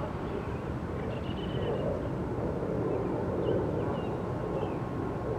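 Outdoor ambience: a steady low rumble that swells a little in the middle, with a few faint high chirps.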